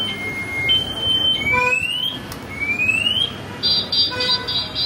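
Vehicle anti-theft alarm sounding and cycling through its tone patterns: a high-low two-tone wail, then two rising whoops, then fast beeping starting a little past halfway.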